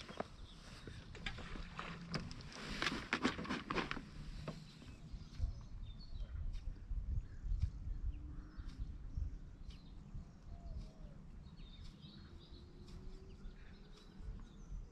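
Outdoor ambience: a steady low rumble with scattered rustles and clicks, louder and busier in the first four seconds.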